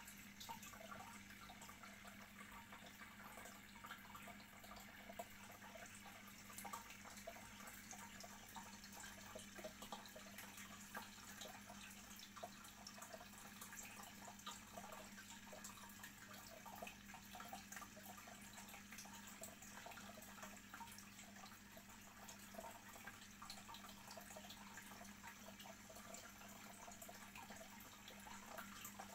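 Faint bubbling and trickling of aquarium water, with many small irregular pops, over a low steady hum.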